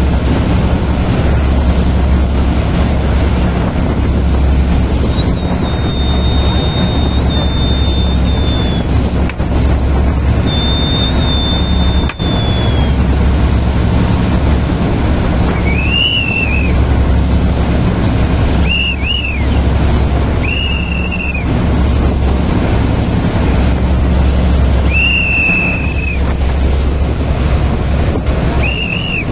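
Motorboat engine running with a steady low hum under the rushing of the wake and wind on the microphone. Several short, high, rising-and-falling whistles sound over it in the second half, after two longer high tones earlier.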